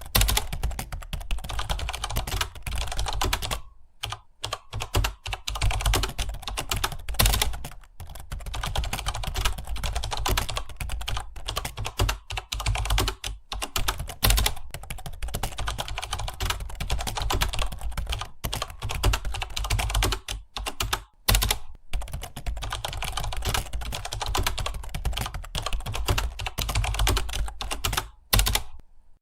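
Fast continuous typing on a computer keyboard, a rapid stream of key clicks broken by a few brief pauses.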